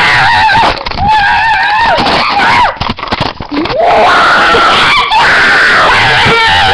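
Several long, high-pitched screams in a row, very loud and close to the microphone, one sliding up in pitch about three and a half seconds in: playful, hyper screaming from young people on a sugar rush.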